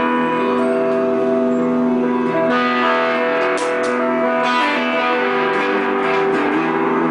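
Electric guitar, a 1978 Ibanez PF230 fitted with EMG H2A passive pickups, played through an amp: sustained chords and held notes ringing out, changing every second or two.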